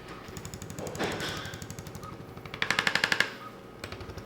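Handheld percussive chiropractic adjusting instrument tapping rapidly on the neck, a fast rattle like a small jackhammer. It runs softly, then a louder burst of quick taps comes a little past halfway for under a second.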